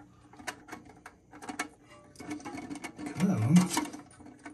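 Plastic lock ring being hand-threaded onto the threaded shank of a new Kohler fill valve: a run of irregular clicks and scrapes. A louder, brief low sound comes about three seconds in.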